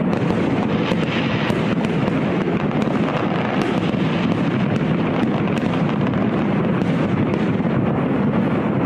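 A continuous fireworks barrage: many bangs blend into a steady, dense rumble, with frequent sharp crackles and pops on top.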